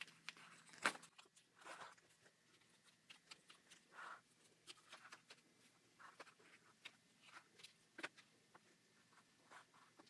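Faint, scattered scrapes and light taps of a wooden stick trimming the edge of a wet clay slab, near silence between them; a sharper click about a second in.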